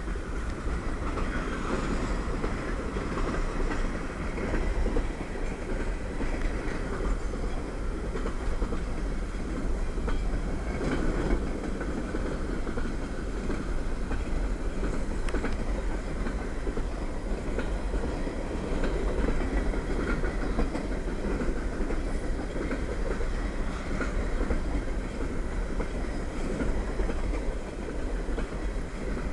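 CSX freight train rolling past, a steady rumble of wheels on the rails that keeps on without a break.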